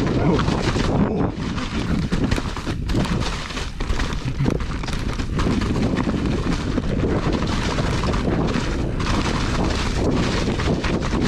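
Mountain bike descending a rough trail: wind buffeting the camera microphone over a steady rumble of tyres, with frequent knocks and rattles from the bike over rocks and roots.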